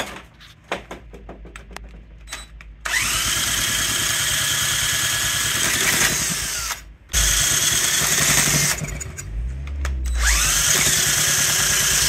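1969–70 Honda Z50's 49 cc four-stroke single firing on starting fluid after years of sitting. It runs with a high rising whine in three loud bursts of a few seconds each, with short drops between them, a sign that the engine will run.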